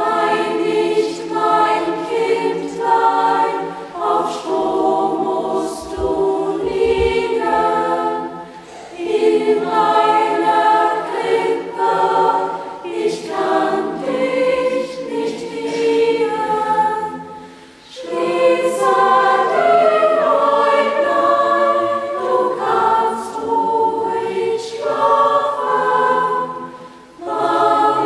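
Youth choir singing in several voice parts together, in sung phrases with short breaks between them; the singing comes in right at the start.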